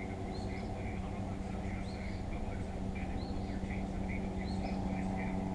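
Birds chirping, a short rising call repeated about once a second, over a steady low mechanical hum.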